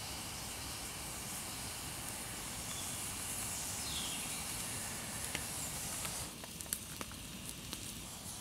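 Wood campfire burning with a steady hiss; about six seconds in the hiss drops away, leaving scattered sharp crackles and pops from the burning wood.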